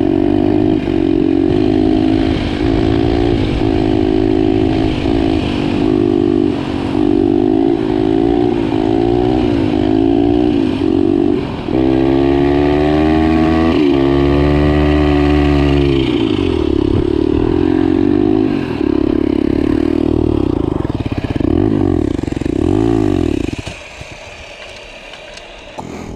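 Turbocharged pit bike's single-cylinder engine accelerating hard, its pitch climbing and falling again and again as it revs out and shifts, then holding high revs. Near the end the engine sound drops away sharply.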